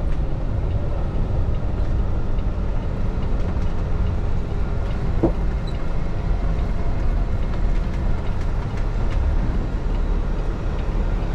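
Peterbilt semi truck's diesel engine and road noise heard inside the cab, a steady low rumble, while the automatic transmission will not downshift to fifth gear.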